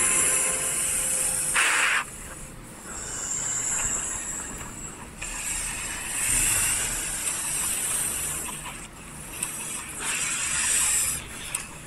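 Hissing in a cat-and-snake standoff: long airy hisses that swell and fade in stretches of two to three seconds, with a short, sharper hiss a little under two seconds in.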